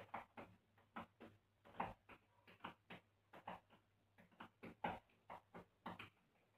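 Tap shoes striking a tiled floor in hoofing tap-dance rhythms: an uneven run of sharp clicks, several a second, with a few heavier accented strikes. They stop about six seconds in.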